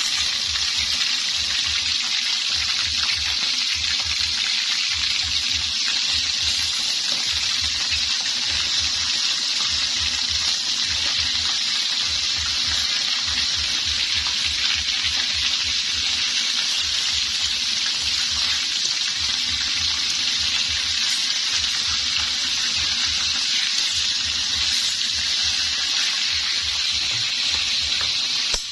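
Meat frying in hot oil in a steel wok: a steady sizzle, with a low fluttering rumble underneath.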